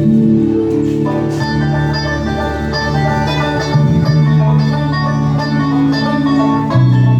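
Instrumental music with quick plucked-string notes over sustained chords, an introduction before the singing.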